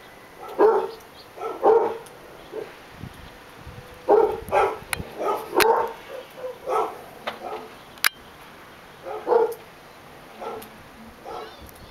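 A dog barking repeatedly, short barks coming singly or in quick pairs with pauses between them, and a sharp knock or two in between.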